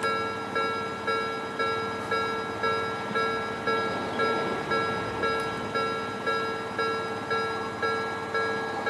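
Japanese railway level-crossing warning bell ringing, a repeating strike about twice a second, each ring fading before the next: the crossing is signalling an approaching train.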